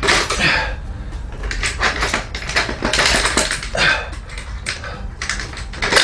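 Metal parts knocking, clinking and scraping in an irregular run as a motorcycle rear wheel, its spacers and axle are worked into place in the swingarm, with a sharp knock at the start and another near the end.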